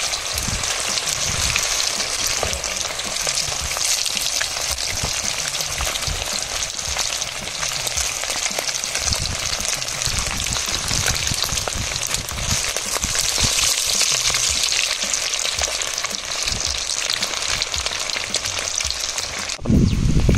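Pomfret fish pakora frying in hot oil, a steady dense sizzle with irregular low knocks. It cuts off abruptly just before the end, giving way to a louder low rumble.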